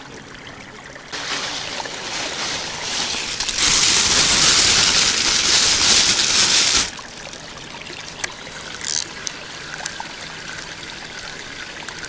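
Water splashing and pouring, building about a second in, loudest for about three seconds, then stopping abruptly.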